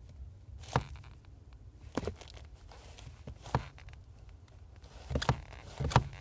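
Car accelerator pedal pumped by a foot in a leather racing boot: about five irregular knocks and creaks of the pedal and boot sole, the loudest near the end, over a steady low hum.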